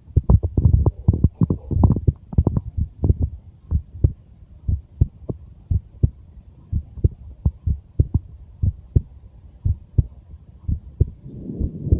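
A 23-year-old's heartbeat heard close up: a steady series of short, low thumps. About eleven seconds in, a low rumbling noise rises beneath the beats.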